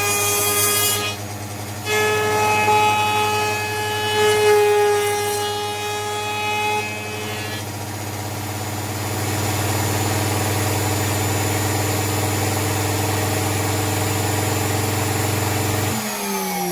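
Fox 1500-watt router table's router motor running at high speed with a loud whine, its pitch shifting as it cuts the edge of a piece of wood for the first several seconds, then running steady. Near the end it is switched off and its whine falls in pitch as it spins down.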